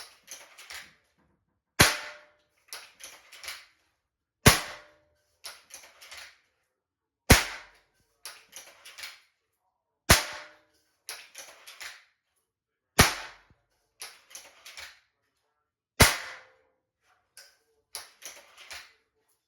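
.22 Gamo Swarm Whisper break-barrel air rifle fired six times, a sharp report about every three seconds. Each shot is followed about a second later by three or four quieter clicks, which fit the barrel being broken open to re-cock.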